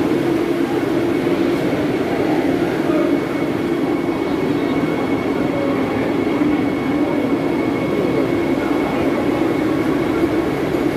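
Vande Bharat Express electric trainset standing at the platform, giving a steady low hum with a thin, constant high tone over it.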